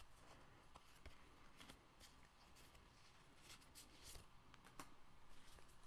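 Faint, scattered flicks and rustles of a small stack of Pokémon trading cards being shuffled through by hand, over quiet room tone.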